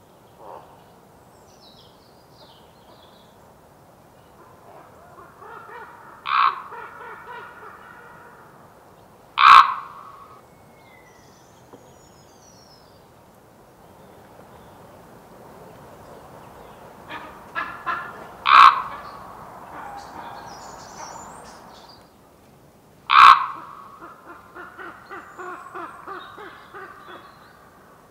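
Common raven calling: four loud, abrupt calls spread out, with a few shorter ones and quieter runs of rapid rattling notes between them.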